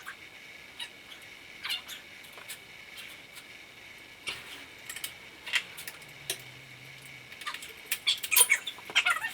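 Scattered light clicks and clinks of hand tools and loose bolts, coming at irregular times and a little thicker near the end, as the oil pan is unbolted from the engine. A faint steady high whine runs underneath.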